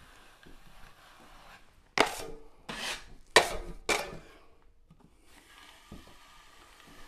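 Drywall taping knife scraped hard against the edge of a metal mud pan four times in quick succession, about two seconds in, cleaning joint compound off the blade. Faint scraping of the knife along the wall before and after.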